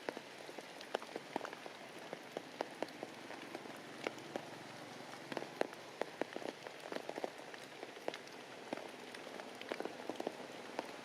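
Heavy rain falling, a steady hiss with many sharp drops pattering close by.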